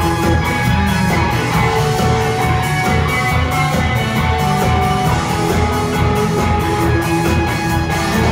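Live rock band playing loudly through the PA of a large hall, heard from among the audience: guitars and a drum kit keeping a steady beat.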